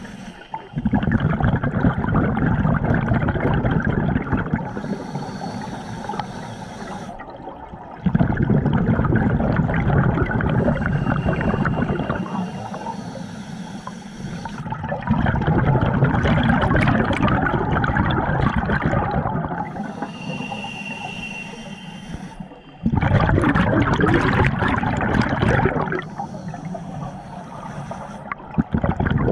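Scuba diver breathing through a regulator underwater. Loud bubbling rushes of exhaled bubbles lasting several seconds alternate with shorter, quieter hissing inhalations that carry a faint whistle, about four breaths in a steady rhythm.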